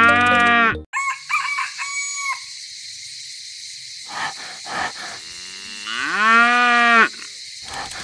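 Cows mooing: one call right at the start and a long moo about six seconds in that rises and then holds, with a short rooster crow between them.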